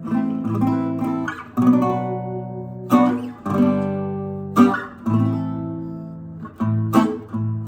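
1950s French Patenotte acoustic guitar strummed: chords struck and left to ring and fade, a new chord every second or so, with quicker strokes near the end.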